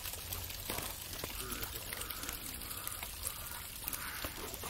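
Steady outdoor background hiss with a low hum, faint distant voices and a couple of soft knocks.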